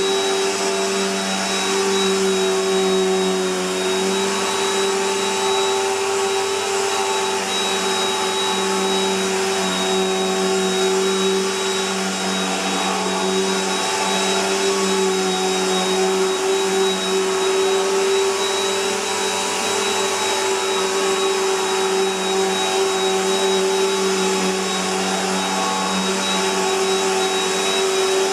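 Bissell PowerLifter Bagged Pet upright vacuum cleaner running steadily, a constant motor drone with a thin high whine over it.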